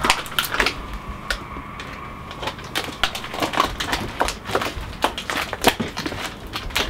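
A thin plastic tub of soft margarine spread crackling and cracking as gloved hands crush and squeeze it. It makes a string of irregular sharp clicks and crackles.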